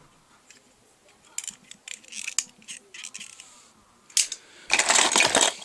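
Die-cast toy cars being handled, with scattered small clicks and knocks, a sharp click about four seconds in, then a denser, louder rattle of cars clattering against each other near the end.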